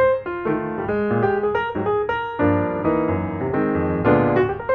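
Background music on piano: a light melody of quick notes over chords, with lower notes filling in about halfway.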